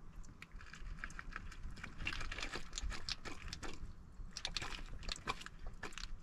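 River pebbles clicking and clattering against one another as a hand rummages through loose gravel, a quick irregular run of small stone-on-stone ticks that grows busier from about two seconds in.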